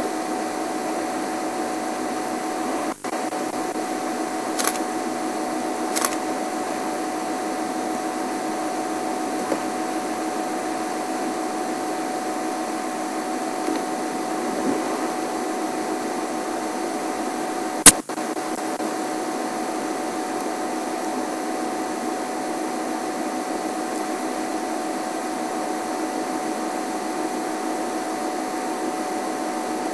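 A steady mechanical hum with a couple of faint clicks about five and six seconds in and one sharp click near eighteen seconds.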